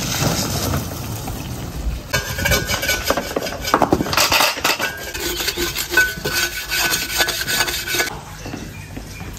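Metal scraping and clattering from a hoe worked through wet, muddy soil and metal buckets of soil being set down and handled, with a short high squeal a few times. The scraping starts about two seconds in and eases off near the end.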